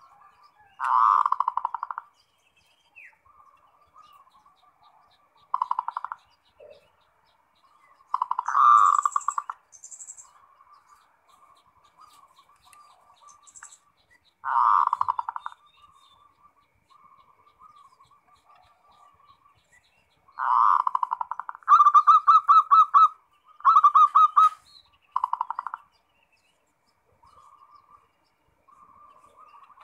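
Zebra dove (perkutut) cooing: repeated phrases of rapid, trilled coos, each about a second long, with softer trilling between them. Near the end several phrases come in quick succession.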